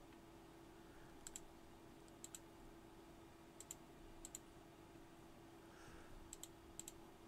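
Computer mouse clicking: about six faint, separate clicks, each a quick press-and-release pair, over a low steady hum.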